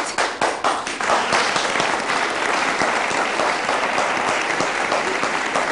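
Studio audience applauding: scattered claps at first, filling in to steady applause about a second in.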